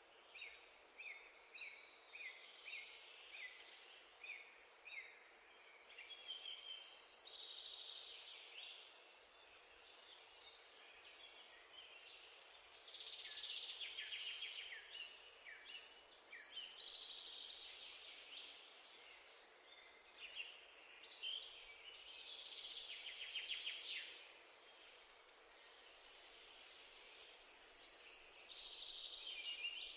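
Small birds chirping and singing: a run of short repeated chirps, about two a second, in the first few seconds, then denser overlapping song that swells and fades several times.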